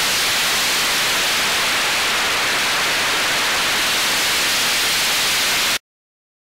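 Steady hiss of static from an analogue 5.8 GHz FPV video link's empty audio channel, as recorded by the ground DVR. It cuts off abruptly near the end into silence.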